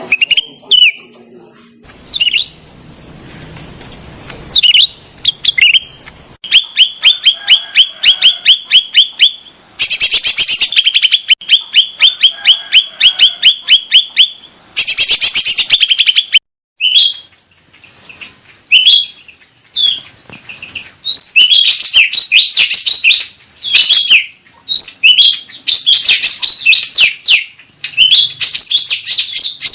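Cucak rante birdsong of the kind played as a lure call: fast trains of evenly repeated high chirps, then more varied, tumbling phrases in the second half, broken by short pauses.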